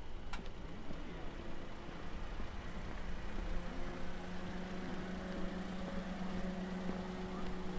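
A motor vehicle's engine running steadily, its even hum becoming stronger about three seconds in.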